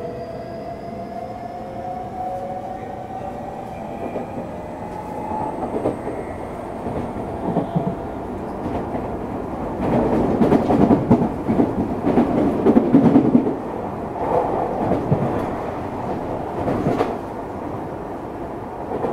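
Running sound of a Tokyu 3000 series electric train heard on board: the traction motors' whine rises in pitch as the train accelerates, fading out after about six seconds. Wheel and track noise with repeated rail-joint knocks then grows, loudest from about halfway through.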